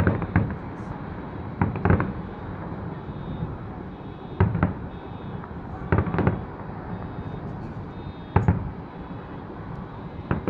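Aerial firework shells bursting: sharp bangs, often in quick pairs, every couple of seconds, over a steady low city rumble.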